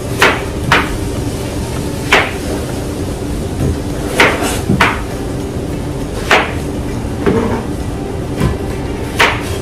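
A series of sharp, irregularly spaced knocks, about eight hard strikes, over a steady background hum.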